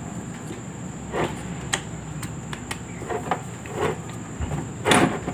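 An electric fan motor being handled as its two housing halves are pressed together over the rotor shaft: a series of small, irregular clicks and scrapes, with the loudest knock about five seconds in.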